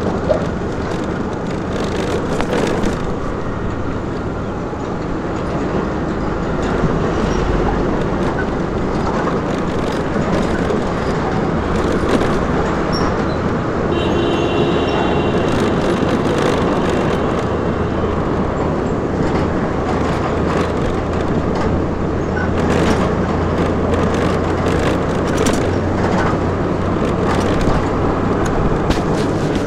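Engines of heavy road traffic running close by, a steady low drone, heard from a stopped scooter; a short high-pitched tone sounds about halfway through.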